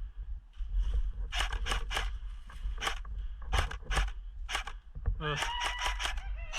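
Airsoft rifle firing: single sharp shots, spaced irregularly, through the first few seconds. Near the end comes a rapid burst, with a motor whine that rises in pitch and then holds steady.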